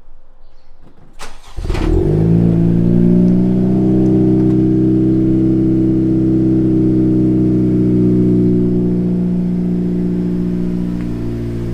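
Honda Civic Si's 1.5-litre turbocharged four-cylinder cold-started: a brief crank about a second and a half in, then it catches and settles into a steady cold-start idle, easing down slightly near the end.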